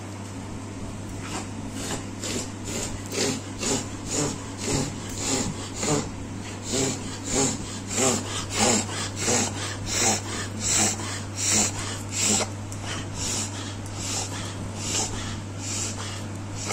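Hand-pump spray bottle sprayed over and over onto a dog's coat: quick, hissy puffs of medicated skin spray, about two a second, starting about a second in and stopping near the end.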